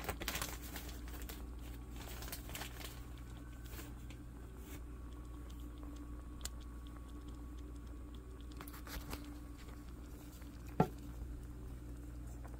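Stew simmering in a cast-iron skillet, with soft crackling and popping bubbles and utensil clicks against the pan, busiest in the first few seconds, over a steady low hum. One sharp knock comes near the end.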